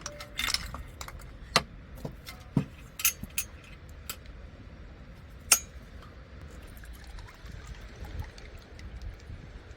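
Irregular sharp clinks and knocks of hard objects being handled, several in the first few seconds, the loudest about a second and a half, two and a half and five and a half seconds in. After that, only a low rumble of wind and a few faint ticks.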